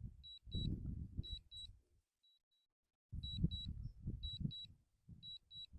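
DJI drone remote controller beeping during an automatic return-to-home landing: a short high double beep about once a second. Under it, low rumbling buffeting on the microphone, heaviest about half a second in and again from about three seconds in.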